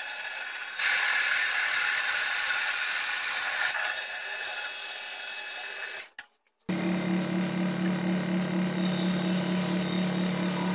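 Bench drill press running, its large bit boring into a walnut board with a louder, steady cutting noise from about a second in. After a short break, an electric scroll saw runs with a steady hum as it cuts the board.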